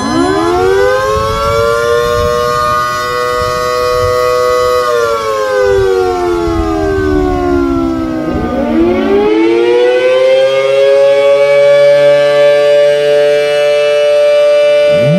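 A siren wailing with several tones sounding together: it winds up quickly at the start, holds for about five seconds, slides down in pitch, then winds up again about nine seconds in and holds before starting to fall near the end.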